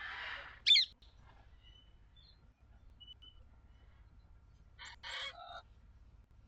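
Birds calling: a short, sharp, sweeping chirp just before a second in, faint thin notes after it, and a harsher call around five seconds in.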